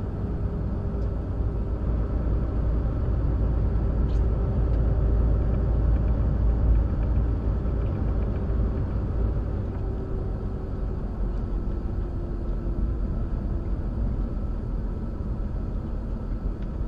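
Semi-truck cab noise at highway speed: a steady low engine and road rumble, with a faint drone that drifts slightly lower partway through as the truck slows.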